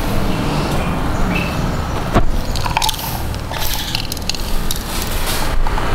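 Metal clicks, knocks and scraping as the crankcase halves of a small two-stroke grass-trimmer engine are handled and fitted together, with the sharpest knock about two seconds in, over a steady low rumble.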